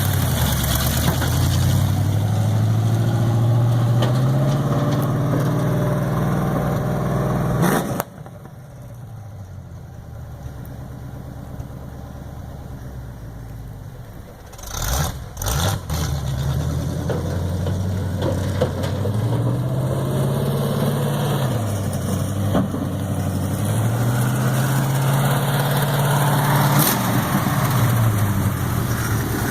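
A Chevy Vortec 350 V8 in a 1974 pickup truck, revving up steadily as the truck pulls away. About eight seconds in the engine sound drops suddenly to a much quieter level. After a few sharp knocks it comes back strongly, revving up and easing off twice.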